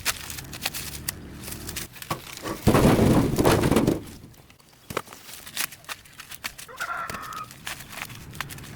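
Chickens: a loud, rough call of about a second, three seconds in, and a short pitched cluck near seven seconds, among scattered clicks and knocks.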